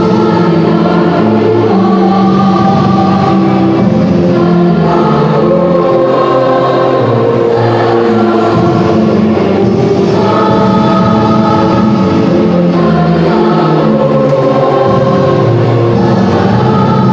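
High-school choir singing in harmony, holding long chords that change every second or two.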